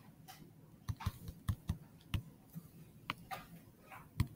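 Tablet pen tapping and clicking on the screen while writing numbers by hand: a dozen or so faint, irregular light taps, mostly from about a second in.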